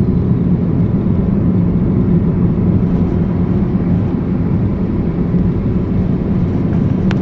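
Steady low rumbling hum with no changes or separate events, a constant mechanical-sounding background noise.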